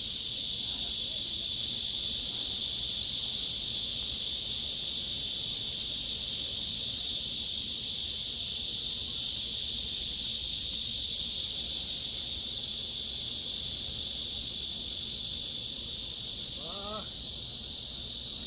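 Cicadas buzzing in a dense, unbroken chorus: a steady, high, hiss-like drone that does not rise or fall.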